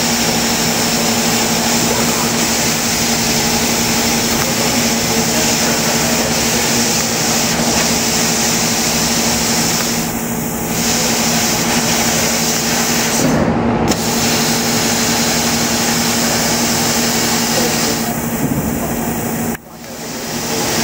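A 1000 W laser die cutting machine running while it cuts a plywood die board: a steady machine hum with a constant hiss. Near the end the sound drops away suddenly and comes back within about a second.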